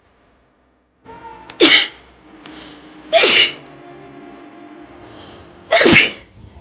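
A woman sneezing three times in a row, each a short loud burst, with a longer pause before the third.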